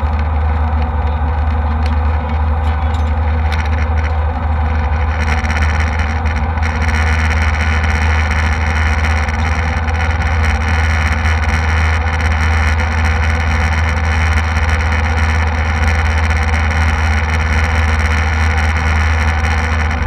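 Steady jet airliner cabin noise in flight: a deep engine drone with a constant airflow roar. About five seconds in, a higher hiss joins and holds steady.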